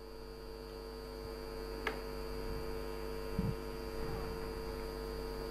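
Steady electrical mains hum in the broadcast sound, with a faint single click about two seconds in and a short soft low thump a second and a half later.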